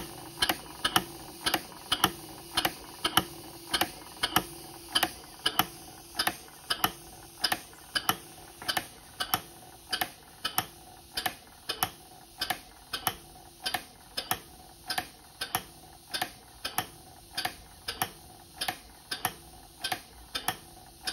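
Snap-action poppet valves of a model mill steam engine running on compressed air, clicking in a steady rhythm of about two sharp clicks a second.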